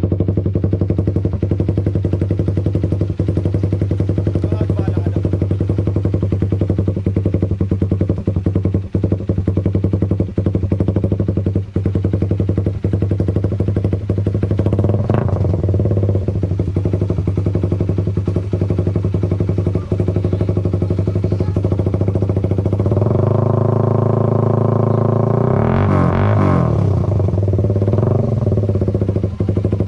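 Suzuki Raider 150 carb's single-cylinder four-stroke engine idling through an open Creed exhaust pipe, a full, very loud exhaust note. There is a short throttle blip about halfway, then the engine is held higher and revved sharply twice near the end.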